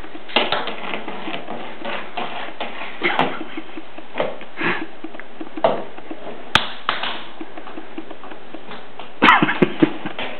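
A plastic toy light-saber tube knocking and tapping against a door, wall and tile floor, with small footsteps. It makes scattered sharp knocks over a steady hiss, with the loudest run of knocks near the end.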